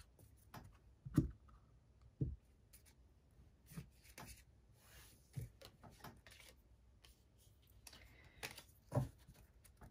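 Faint, scattered soft taps and rustles of an oracle card deck being shuffled and handled, with a few louder knocks about a second in and near the end.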